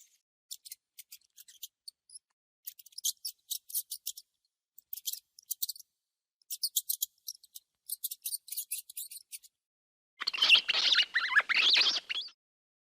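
Mouse squeaking: clusters of rapid, very short high-pitched chirps, then a louder, harsher burst of squeaking lasting about two seconds near the end.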